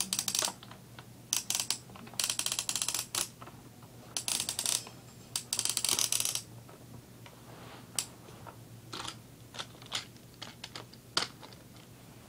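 Small hard toys being handled: five bursts of quick rattling clicks over the first six seconds, then a few single clicks and taps.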